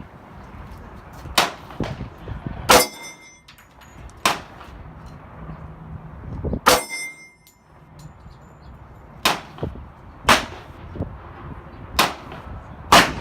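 Rifle shots at a shooting range, about eight sharp cracks at irregular intervals, two of them followed by a brief high metallic ring.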